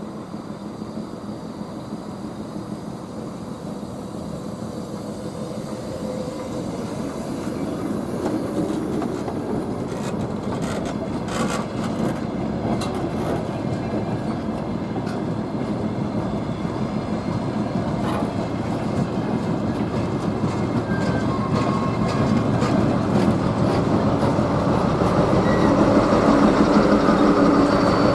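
DR1A diesel multiple unit pulling out past the listener: the coaches roll by with wheels clicking over rail joints, and the rumble builds steadily to its loudest near the end as the diesel power car draws level.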